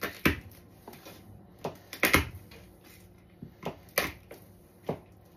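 A knife and garlic cloves clicking and knocking against a cutting board as a garlic bulb is broken up into cloves: about six sharp, irregular taps, the loudest about two seconds in.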